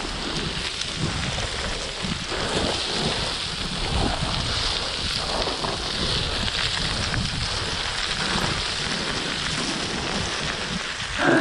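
Loose scree stones crunching and sliding steadily underfoot as someone runs down a scree slope, a dense crackling of gravel.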